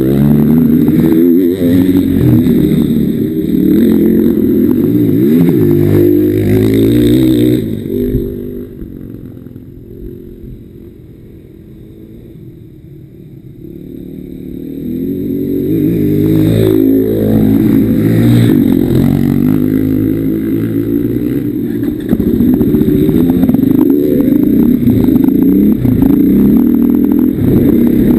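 Off-road motorcycle engine revving up and down as the bike is ridden. It falls away to a much quieter sound for several seconds in the middle, then picks up and revs again.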